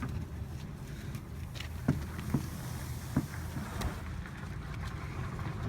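A car engine running steadily, with three short sharp clicks about two, two and a half and three seconds in.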